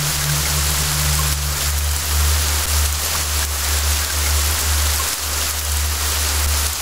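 Steady rain falling, an even hiss, over a low sustained hum; a higher part of the hum fades out about two and a half seconds in.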